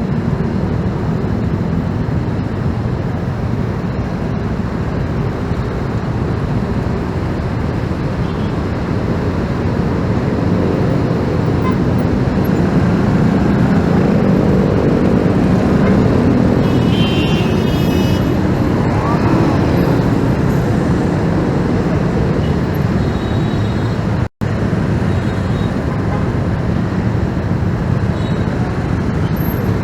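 Road traffic heard from a moving motorcycle: a steady rush of engines and tyre noise that swells a little in the middle, with a very brief cut in the sound about three-quarters of the way through.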